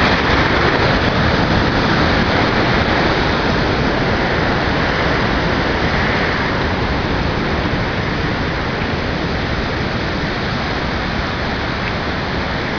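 Waterfall splashing in a steady, loud rush of falling water throwing off spray.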